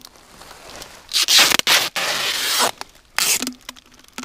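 Adhesive tape ripping off its roll as it is wound around a birch trunk: one long pull of about a second and a half, then a short one near the end.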